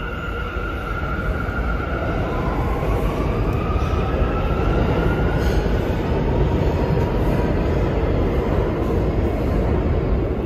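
New York City subway train running through the station, a steady low rumble that grows louder over the first few seconds. Electric motor whine rises in pitch from about two to five seconds in.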